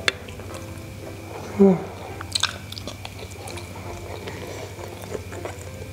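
Close-miked chewing of a sticky rice dumpling (bakcang), with wet mouth clicks and smacks, a sharp click at the start, and a brief hum of the voice about one and a half seconds in, the loudest moment.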